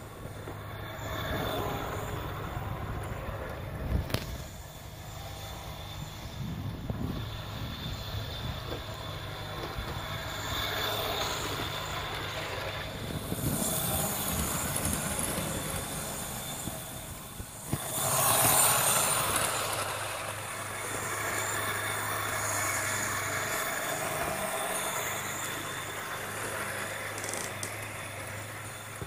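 Battery-powered LE Toys Italo AGV 575 remote-control toy train running at speed around a plastic track: a steady motor hum and wheel noise, with its built-in train sound effect that plays at full speed. It grows louder twice as it passes close by, and there is one sharp click about four seconds in.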